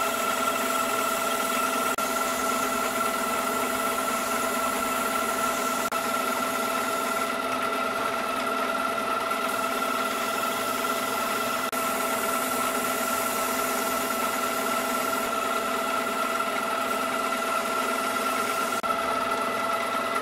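Harbor Freight benchtop metal lathe running steadily in low gear, its motor and gear train giving a steady whine, with a hiss of sandpaper on the spinning wood that shifts a few times. The lathe switches off at the very end.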